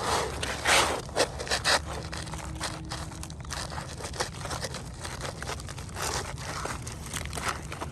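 Asphalt roofing shingles scraping and rustling against each other as they are handled and worked into place, with a few louder scrapes in the first couple of seconds.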